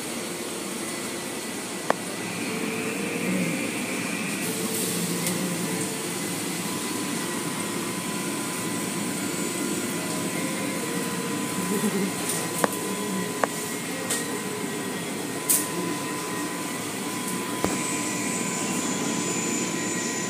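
Automatic car wash machinery running: a steady wash of water spray and spinning cloth brushes over a motor hum, with a few sharp clicks and knocks.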